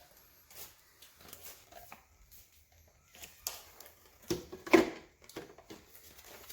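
Slow juicer parts being handled and fitted together during assembly: scattered light clicks and knocks, the loudest of them about four to five seconds in.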